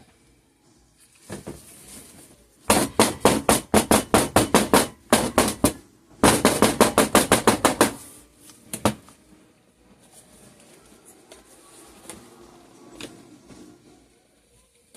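Rapid knocking in two runs of quick strikes, about six or seven a second, with a couple of single knocks after: a soap mould tapped against the work surface to settle the freshly poured layer.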